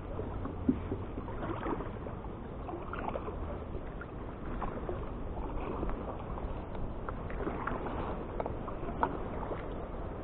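Kayak paddle strokes: the blades dip into the river water with small splashes and drips, an irregular series of light water sounds over a steady wash.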